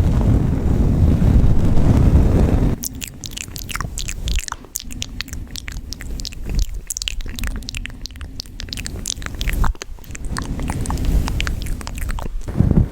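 ASMR sound effects made close to the microphone. A low rushing noise like wind or surf stops abruptly after about two and a half seconds. A long run of crisp crackling and crunching clicks follows, and the low rushing returns near the end.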